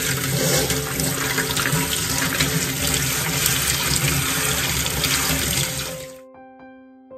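Kitchen tap running water over chopped vegetables in a plastic colander, splashing into a stainless-steel sink as they are rinsed. The water fades out about six seconds in, and soft background music with held notes takes over.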